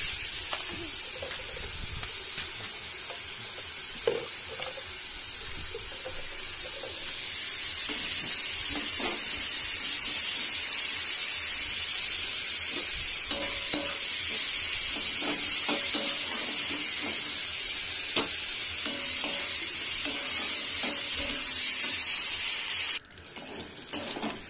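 Sliced onions sizzling as they fry in oil in a kadai, with a spatula scraping and tapping against the pan as they are stirred now and then. The onions are being browned slowly. The sizzle drops away sharply near the end.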